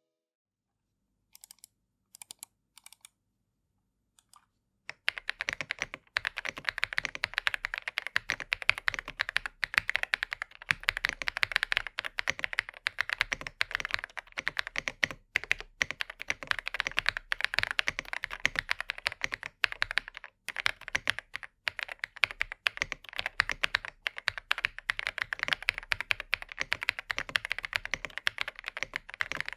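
Typing on a Feker IK85 Plus mechanical keyboard with pre-lubed Feker Mulan linear switches: a clacky and full sound of keystrokes. A few faint clicks come in the first seconds, then fast continuous typing starts about five seconds in.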